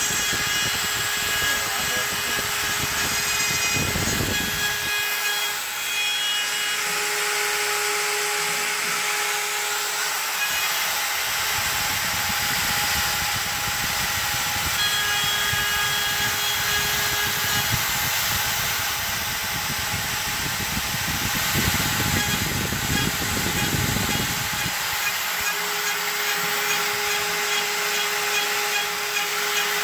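X-Carve CNC router's spindle running with a steady high whine while its end mill cuts a wooden board. The heavier cutting noise comes and goes as the bit passes in and out of the wood: strong at first, easing for several seconds, strong again through the middle, easing near the end.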